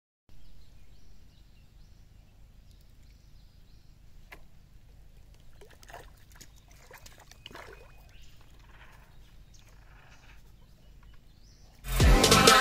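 Faint splashing of a hooked fish thrashing at the water's surface. Near the end, loud electronic music with a heavy beat cuts in abruptly.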